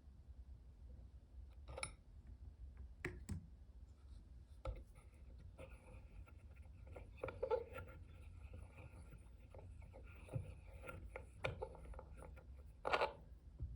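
Scattered light clicks, knocks and rubbing of small hard objects being handled, over a steady low hum. The loudest knocks come about halfway through and again near the end.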